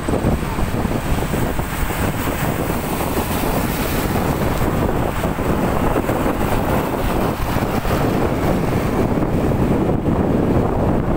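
Strong storm wind blowing hard across the microphone, a loud, steady rush of noise.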